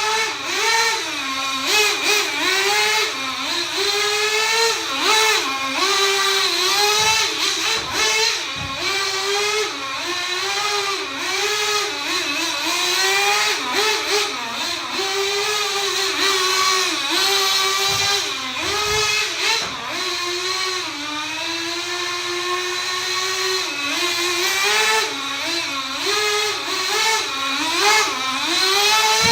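Small nitro (glow-fuel) engine of a 1/16 HSP Thunderfire RC truck running and being blipped on the throttle over and over, its high buzzing pitch rising and falling about once a second, held steadier for a few seconds midway.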